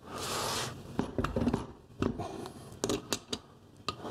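Handling noise of objects being moved and set down: a short rush at the start, then scattered knocks and clicks, with a cluster of sharp clicks about three seconds in.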